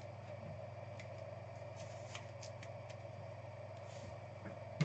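Faint clicks and light rustling of trading cards being handled, over a steady low electrical hum, with one sharper click near the end.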